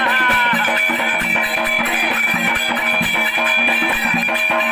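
Instrumental interlude of a Marathi folk song: plucked strings playing over held tones and a fast, steady percussion beat, right after a sung line trails off.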